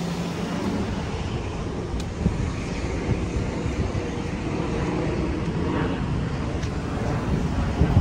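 Steady running rumble of a Kawasaki R211A subway train in motion, with a sharp click about two seconds in and a loud thump near the end.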